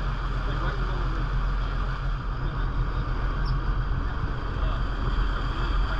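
Dive boat's engine running steadily as it motors along, a low drone under an even hiss of water and wind.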